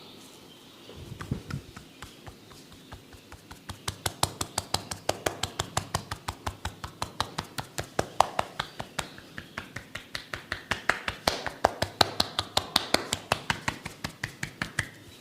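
Rapid, rhythmic tapping of a head massage, sharp taps several a second, starting about four seconds in and running on with a slightly uneven beat.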